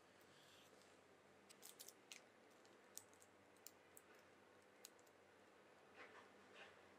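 Faint, scattered soft clicks and paper crinkles from a knife cutting a soft cake and sliding along baking paper under the slice.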